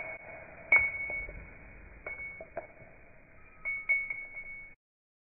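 A small metal cylinder dropping and bouncing on a wooden floor: a handful of bright clinks, each ringing briefly at the same high pitch, the last two close together. The sound cuts off suddenly near the end.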